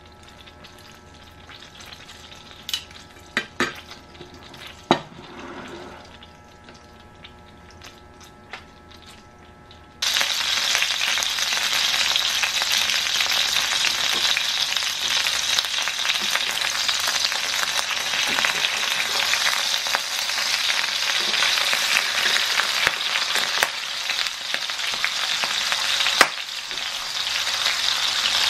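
Flour-coated chicken breast frying in oil and butter in a stainless steel skillet. A faint sizzle with a few sharp clicks gives way, about ten seconds in, to a loud, steady sizzle that starts abruptly.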